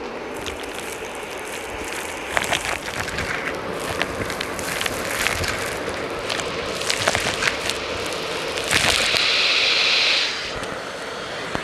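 Dyson Light Ball upright vacuum cleaner running and sucking up crunchy debris: many crackles and sharp clicks as the bits are pulled in. A louder hiss rises for about a second and a half near the end.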